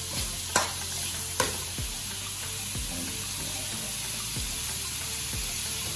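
Frozen mixed vegetables sizzling steadily as they fry in margarine in a non-stick wok. A metal spatula knocks sharply against the pan twice in the first second and a half.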